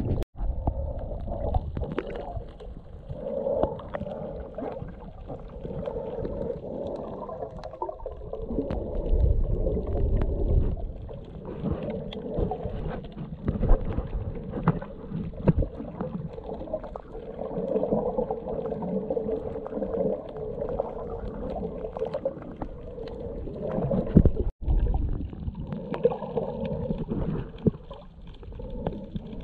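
Muffled underwater noise picked up by a GoPro Hero 7 Black below the surface: low rumbling and sloshing of water against the camera, with a faint steady hum underneath. The sound cuts out for an instant twice, near the start and about 25 seconds in.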